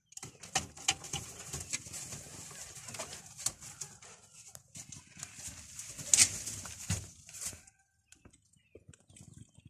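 Fancy pigeons cooing in their cages among scattered clicks and rustling. The sounds die away about eight seconds in.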